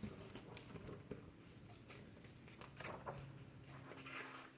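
Near silence: quiet room tone with a few faint clicks and rustles.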